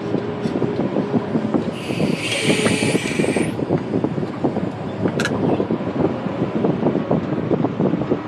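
Wheel loader running, its engine and machinery clattering steadily, with a hiss about two seconds in that lasts about a second and a half.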